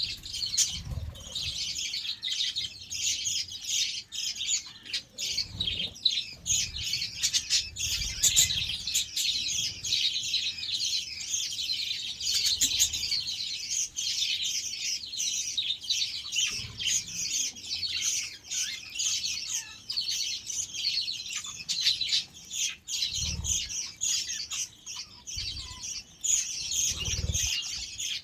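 A flock of budgerigars chirping and chattering nonstop, many birds at once, with a few short low thumps among the chirps.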